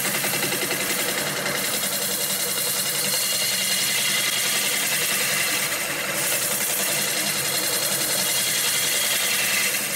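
Bowl gouge cutting the outside of a spinning river birch bowl on a wood lathe: a steady rushing hiss of shavings being peeled off, over a low steady hum from the lathe.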